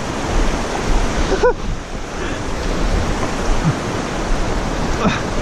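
Rushing river water tumbling over a rocky riffle: a steady, loud wash of water noise.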